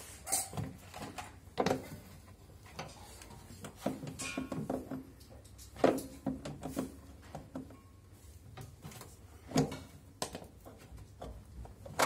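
Scattered clicks, knocks and scraping of pliers and hands working plastic and metal parts under a front-loading washing machine's drum, loosening the plastic pins that hold the shock absorbers. A few sharper knocks stand out, about two seconds, six seconds and nine and a half seconds in.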